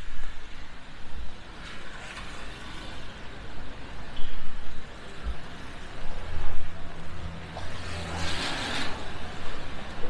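Rainy city street ambience: steady noise of rain and traffic on a wet road, with a vehicle engine humming low in the second half and a loud hiss about eight seconds in.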